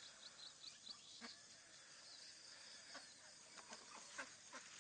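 Near silence: faint outdoor ambience with a quick run of high chirps near the start and a few soft, scattered ticks.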